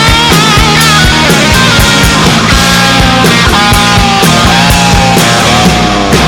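Rock music with a steady drum beat, bass and bending, sliding guitar lines.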